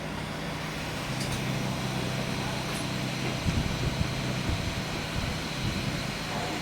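Steady hum and rush of air from an electric fan motor, with a few soft knocks in the middle.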